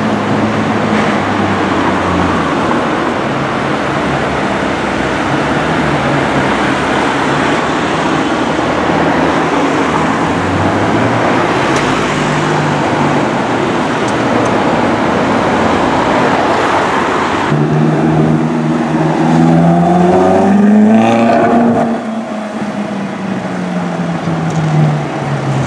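Busy city traffic with cars moving slowly. Later a Ferrari California's V8 revs up, rising in pitch and getting louder, then eases off and runs lower as the car pulls away.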